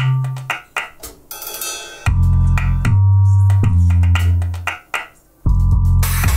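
Electronic drum kit played along with a backing track of deep, sustained bass notes. The music drops away briefly twice, and a cymbal crash comes in near the end.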